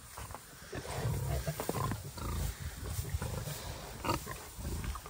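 Large Black and Tamworth pigs grunting in low, rumbling bouts while rooting and eating in a pile of hay, with rustling and crunching of the hay.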